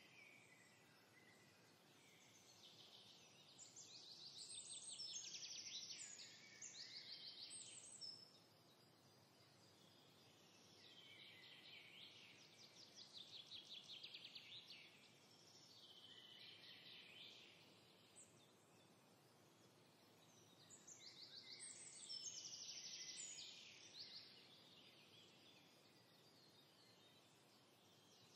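Faint songbird twittering: several phrases of fast high trills and chirps, each a few seconds long, over a light background hiss.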